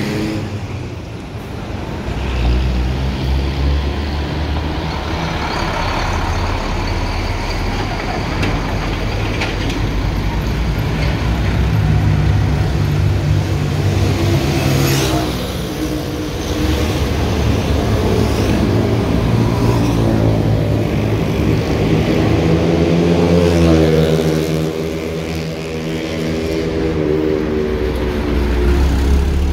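Heavy road traffic passing close by: trucks, buses and motorcycles going past one after another, engines running and tyres on the road. Several large vehicles pass with an engine note that rises and falls as each goes by, one in the middle and one before the end.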